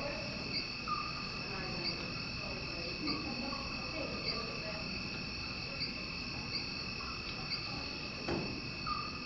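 Crickets chirping: a steady high trill with separate short chirps roughly once a second, over a faint murmur of voices.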